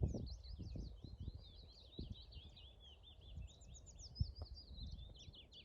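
A songbird singing one long, rapid, unbroken warbling song of high twittering notes, with a few soft low thumps underneath.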